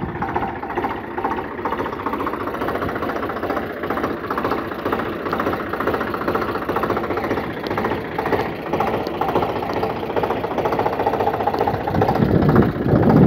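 Eicher tractor's diesel engine running steadily with a chugging knock, heard up close.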